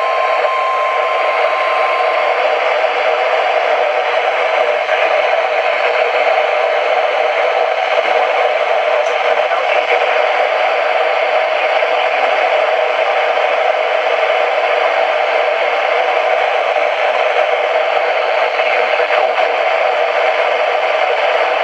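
Steady radio static: an even, loud hiss with no speech, and a faint steady tone for roughly the first two seconds.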